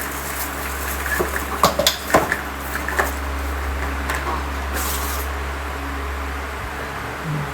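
Items being handled: a few sharp clicks and light knocks between about one and three seconds in, and a brief hiss a couple of seconds later, over a steady low hum.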